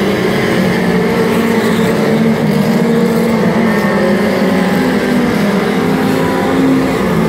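Engines of several four-cylinder mini stock race cars running at speed together, several engine notes overlapping and holding fairly steady.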